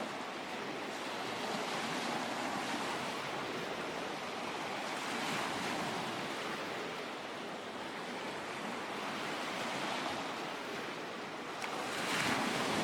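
Lake waves washing onto the shore in a steady wash of surf, swelling and easing every few seconds, with the biggest surge near the end. Some wind buffets the microphone.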